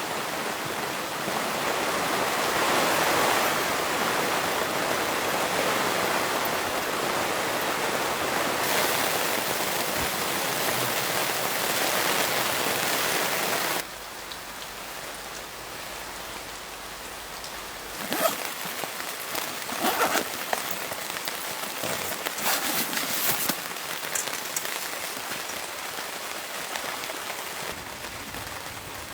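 Steady rain, heavy at first, then cutting suddenly to lighter rain about halfway through. The lighter part has scattered short taps and knocks.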